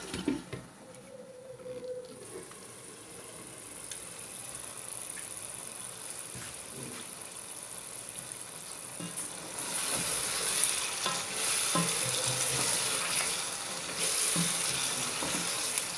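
Potato curry masala simmering in a nonstick wok: a knock as the glass lid comes off near the start, then a quiet stretch. From about ten seconds in, a louder sizzle with a spoon scraping and stirring through the thick gravy.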